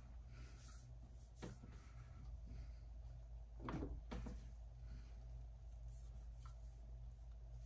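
Faint handling knocks from working a bowling ball and sanding pad, over a steady low hum. There are a few soft knocks, with the loudest two close together about four seconds in.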